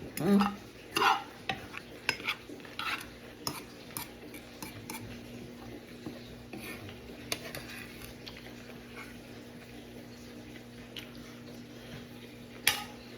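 Cutlery clinking and scraping against a cooking pot while food is eaten straight from it: irregular taps that come thickest in the first few seconds, then thin out, with one sharp clink near the end. A faint steady hum runs underneath.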